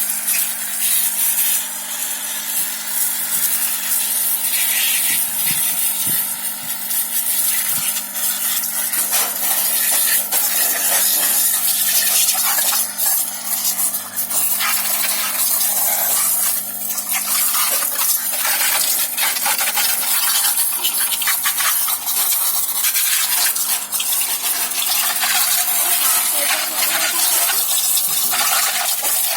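Samsung single-tub automatic washing machine running on test after a wiring repair: water churning and splashing in the tub over a steady low hum, with scattered clicks and knocks.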